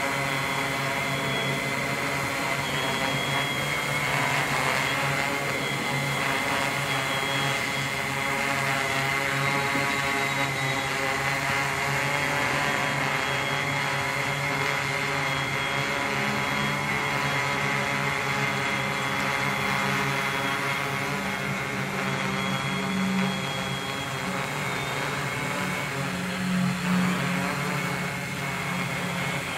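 Tarot FY680Pro hexacopter in a low hover, its six NTM 3536 910kv brushless motors spinning 12-inch APC propellers in a steady buzzing hum with a high whine on top. The pitch steps up about halfway through and wavers slightly as the motors hold the craft in place.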